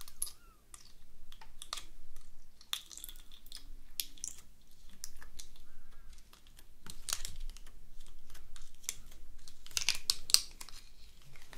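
Thick red glitter slime in a plastic jar, poked and stirred with long acrylic nails: irregular small clicks and sticky pops, with denser clusters of crackling about seven and ten seconds in as the slime is pulled loose from the jar.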